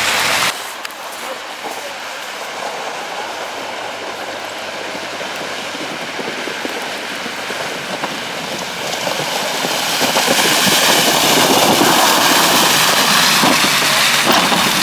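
Heavy vehicle noise: a steady rattling clatter that begins abruptly just after the start and grows louder about ten seconds in.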